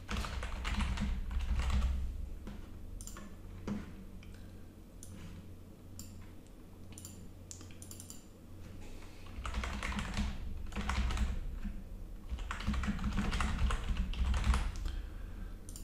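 Typing on a computer keyboard in three quick runs of keystrokes: one at the start, one about ten seconds in and one from about thirteen to fifteen seconds in. A few single clicks fall in the pauses between.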